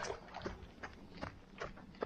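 A runner's footsteps on a trail, a steady beat of about two and a half steps a second.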